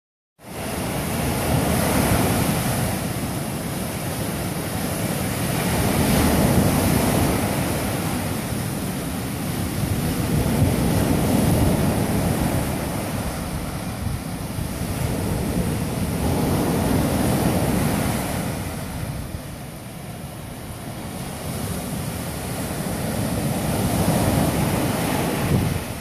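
Atlantic surf breaking on a sandy beach: a steady rush of noise that swells and eases every few seconds as each wave comes in and washes up the shore.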